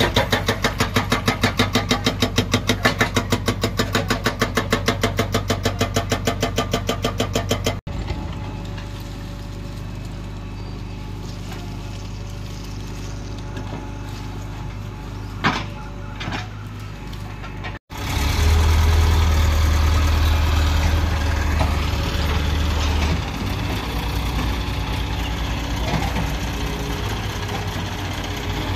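Hydraulic rock breaker on a JCB 3DX backhoe loader hammering with rapid, evenly spaced blows; it cuts off about a third of the way in. A diesel engine then runs steadily with one sharp click, and after a second cut a louder, deeper engine drone takes over.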